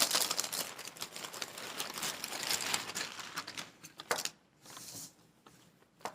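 Packaging crinkling and rustling as items are handled and unwrapped, continuous for about four seconds, then a few short rustles.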